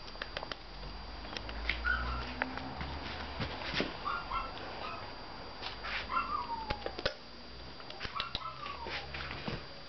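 Pomeranian puppy giving about four short, high-pitched whines, some sliding down in pitch, with light clicks between them.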